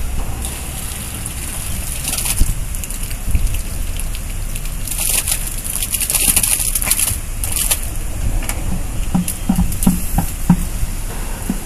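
Muddy water and wet sludge splattering onto the ground as they are tipped out of a plastic bucket. The splashing comes in a few rushes, the longest about halfway through, over a steady low rumble.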